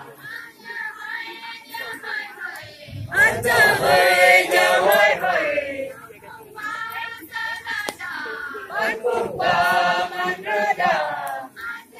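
Group singing of a Tangsa Sapolo dance song, a chanted melody sung in phrases, with the loudest, fullest passages about three seconds in and again around nine seconds in.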